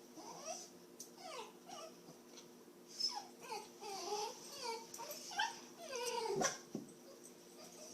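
Dog whimpering in a string of short, high, falling whines: anxious whining from a dog frightened of a vacuum cleaner.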